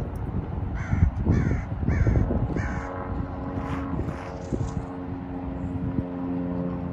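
A bird gives four harsh caws in quick succession, about half a second apart. A steady low hum then sets in and holds, over a low rumble.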